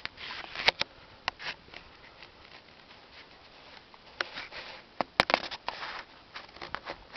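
Rustling and handling noise from a handheld camera being moved around, with irregular sharp clicks and snaps, a cluster of them about five seconds in.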